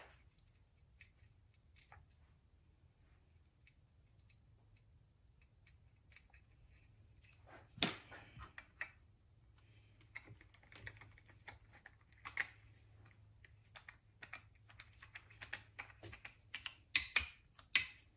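Small clicks and taps of a hand screwdriver and bolts against the metal of a Hi-Blow air pump as a new diaphragm is bolted onto the motor block. One sharper knock comes about eight seconds in, and the clicks come thick and fast near the end.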